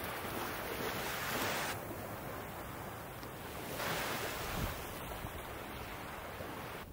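Ocean surf washing onto a sandy beach, a steady rushing that swells louder about a second in and again about four seconds in, with wind rumbling on the microphone.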